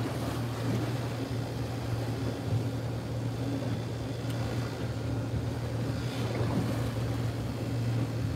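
A boat's engine running with a steady low drone.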